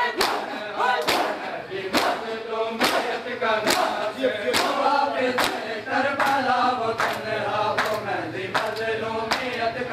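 Shia mourners performing matam: a crowd of men chanting a noha in unison while striking their bare chests with their hands together, a sharp slap about every 0.8 seconds in time with the chant.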